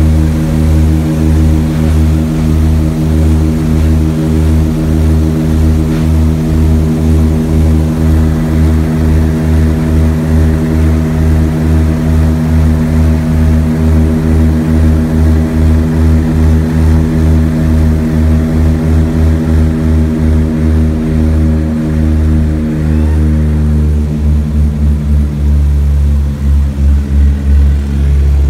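Twin Wright R-1820 nine-cylinder radial engines and propellers of a Grumman Albatross amphibian, heard loud from inside the cockpit, running under power with a steady throbbing beat between the two engines. The beat grows uneven in the last few seconds as the throttles are worked.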